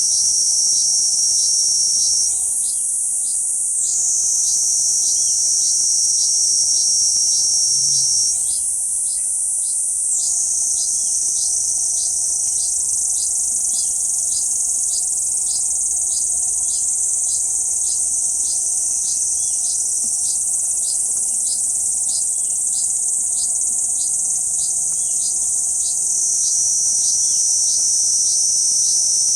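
Kuroiwa's cicada (Platypleura kuroiwae) singing: a loud, continuous, high-pitched buzz. The buzz jumps higher twice in the first ten seconds, stays somewhat higher through the middle and drops back near the end. Under it runs a faint, regular ticking about twice a second.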